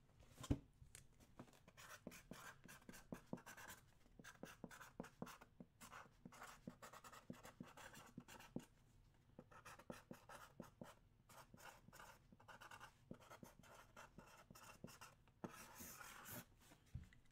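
Marker pen writing on a wooden box lid: many faint, quick scratchy strokes. There is a single knock about half a second in.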